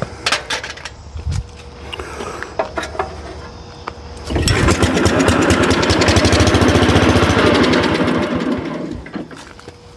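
Wheel Horse 702's cast-iron Kohler engine catches about four seconds in and runs with a fast, even firing beat for four or five seconds on a squirt of starting fluid, then fades out and dies. Fuel is not reaching the carburetor bowl, so it will not keep running on its own.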